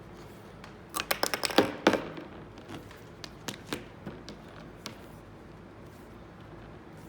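Rubber windshield molding being worked onto the glass edge by hand: a quick cluster of taps and knocks about a second in, then scattered single clicks that die away.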